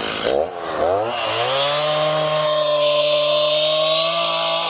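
Chainsaw revving up from idle and held at steady full throttle as it cuts into a fallen oak log, the engine note starting to drop off near the end.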